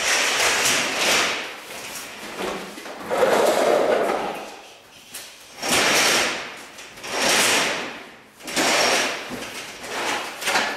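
Large workshop curtain dragged along its overhead rail by hand, in about five long swishes as it is pulled across in stages.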